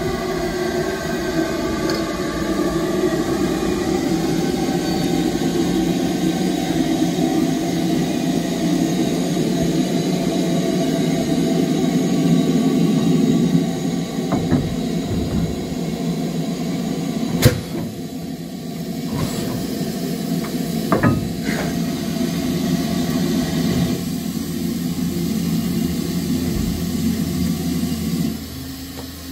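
GWR Grange-class 4-6-0 steam locomotive moving slowly with a steady hiss and rumble, then buffering up and coupling on. There is one sharp metallic clank about halfway through and two lighter clanks a few seconds later, and the hiss drops away near the end.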